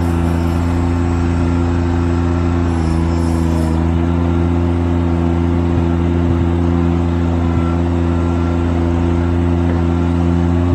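John Deere 430 garden tractor's three-cylinder diesel engine running steadily as the tractor drives along, a constant deep drone through its welded-back muffler.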